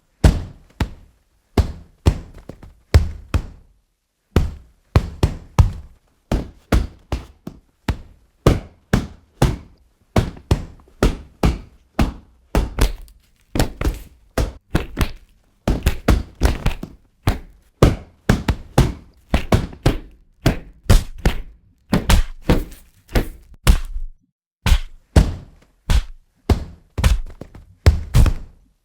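A long series of punch sound effects: sharp, heavy thuds of gloved boxing punches landing, one after another, often in quick combinations of two or three, each with a short decaying tail.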